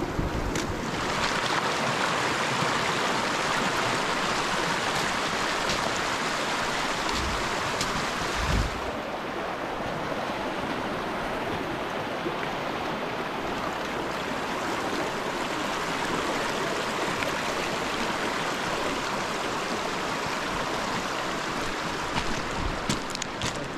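Mountain creek rushing: a steady wash of running water, its tone changing abruptly about nine seconds in, with a few light knocks near the end.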